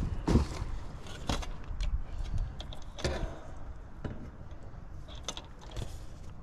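Sheet-metal heater kit plate being handled and fitted against the heat pump's metal cabinet: a few sharp knocks in the first three seconds, with lighter clicks and rattles of metal and wiring between and after.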